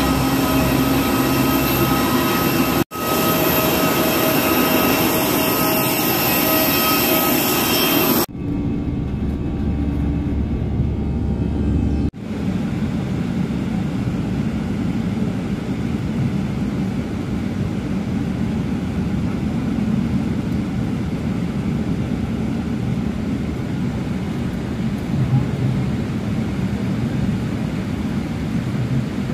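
Airliner jet noise. It opens with a loud scene carrying steady high whining tones, broken by two abrupt cuts, then a deep rumble. From about twelve seconds in it settles into the steady, even roar of an airliner in flight heard from inside the cabin.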